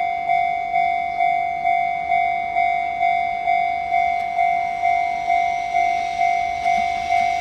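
Japanese level-crossing warning bell ringing its repeated 'kan-kan' tone, about twice a second, each strike fading before the next. It is the alarm that a train is approaching.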